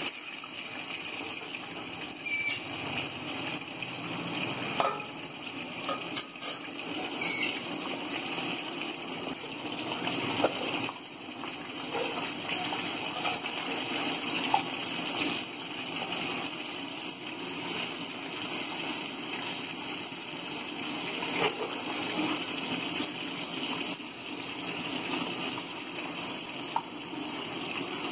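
Marinated fish pieces deep-frying in hot oil, a steady sizzling and bubbling. Two sharp clicks stand out, about two and a half and seven and a half seconds in.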